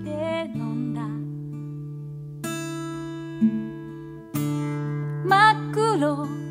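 Japanese folk song: a woman singing to her own strummed acoustic guitar. A sung phrase ends about a second in, two chords are strummed and left ringing, and the singing comes back near the end.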